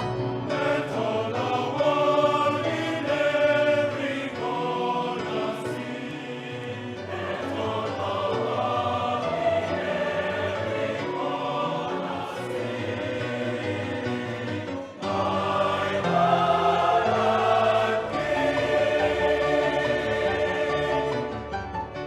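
Choral music: a choir singing sustained chords, with a short break about two-thirds of the way through.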